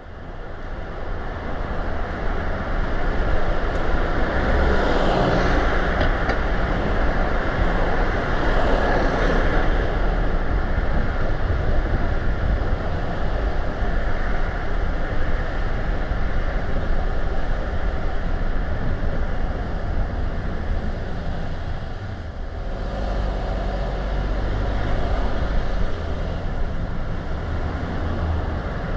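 A car driving on a town road, heard from a car-mounted camera: steady tyre and road noise over a low engine rumble. It fades in over the first few seconds and swells twice, around five and nine seconds in, with a brief dip after about twenty-two seconds.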